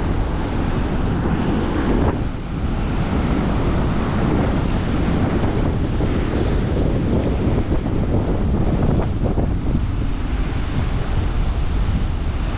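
Wind buffeting the microphone over the steady rush of rough surf breaking at high spring tide.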